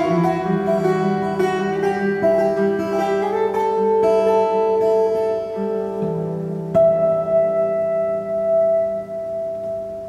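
Cort steel-string acoustic guitar strummed through the closing bars of a song. A last chord is struck about seven seconds in and left to ring, fading away.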